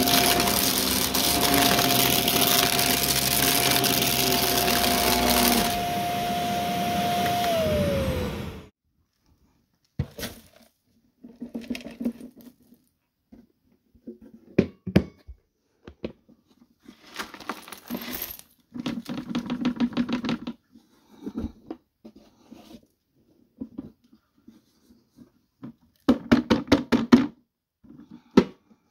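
Shark Navigator upright vacuum running with a steady whine, then switched off about eight seconds in, the motor's pitch falling as it winds down. After that come short, scattered bursts of clicking and rattling, some as rapid runs of clicks.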